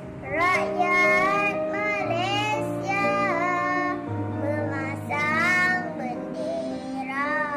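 A young girl singing over an instrumental backing track, her held notes wavering up and down.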